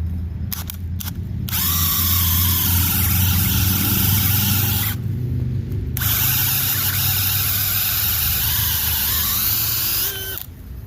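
DeWalt DCD996 20V brushless hammer drill spinning a 1-inch Bosch Daredevil spade bit to work it back out of a hole in wood where it was buried. A few clicks come first, then two runs of about four seconds each with a pause of about a second between them. The motor whine rises as it spins up and falls away as it stops.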